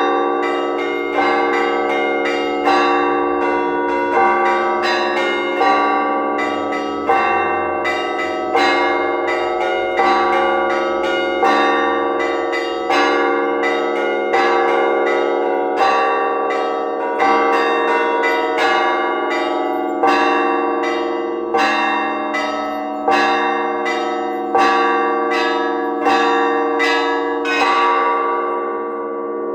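Festive Orthodox church bell ringing (zvon) calling to the Divine Liturgy: small bells chime in quick, continuous patterns over a heavier bell struck about every one and a half seconds. Near the end the small bells fall silent for about a second while the larger bells ring on.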